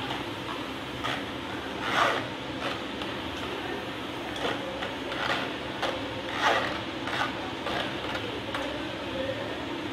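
Soaked moong dal deep-frying in hot oil inside a wire-mesh strainer: a steady sizzle, with a steel spoon scraping and knocking against the mesh again and again as the dal is stirred, loudest about two seconds in and again past the middle.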